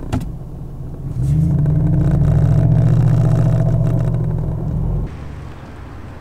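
Straight-piped (cat and muffler deleted) 4.6 L Northstar V8 of a 1996 Cadillac Eldorado pulling away under throttle. A loud, deep exhaust note comes in about a second in, holds steady, and cuts off suddenly about five seconds in, leaving a fainter engine rumble.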